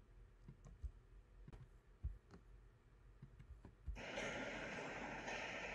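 Near silence broken by a few faint clicks. About four seconds in, the hall ambience of a concert recording starts up suddenly as a steady, even hiss, just before the orchestral music begins.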